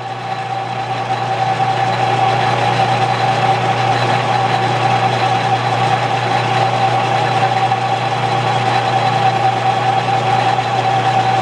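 Metal lathe running, spinning a wooden handle blank: a steady machine whine over a low hum from the motor and gearing, growing louder over the first couple of seconds and then holding steady.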